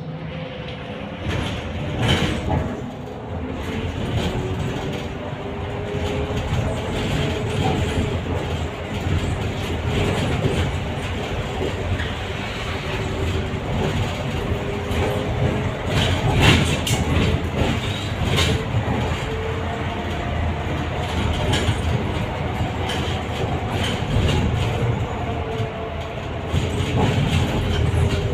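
Electric trolleybus in motion, heard from inside the cabin: a steady rumble with a faint motor whine that slowly rises and falls with speed, and scattered knocks and rattles from the body.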